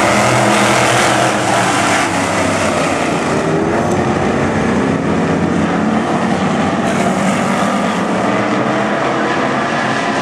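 A pack of dirt-track sportsman coupe race cars running hard together, with many engines overlapping in one loud, continuous sound. Their pitches drift up and down as the cars go through the turns and onto the straight.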